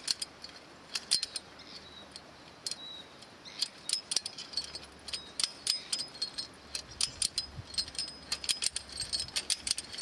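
Ratchet handle of a Triplex wire strainer being cranked, its pawl clicking metallically as the fence wire is wound onto the spool under tension. The clicks are sparse for the first few seconds, then come in quicker runs.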